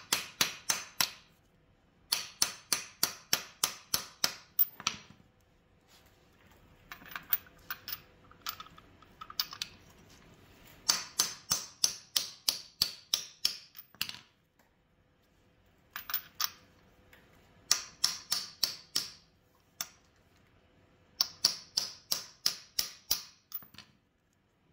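Hammer tapping on an old 5/8-inch socket to drive a new GM expansion plug into the rear bore of an LS1 V8's crankshaft. Several runs of quick, light metallic taps, about five a second, with short pauses between them; one run in the middle is fainter.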